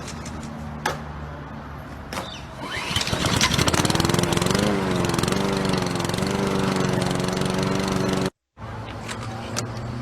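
Small petrol lawnmower engine idling, then revving up about three seconds in and running loud with a wavering pitch. The sound breaks off abruptly just past eight seconds, and an engine idle starts again.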